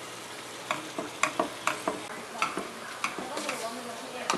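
Pork ribs sizzling in hot oil in a metal pot on high heat. From about a second in, a spatula stirring them scrapes and knocks against the pot in irregular clicks, two or three a second.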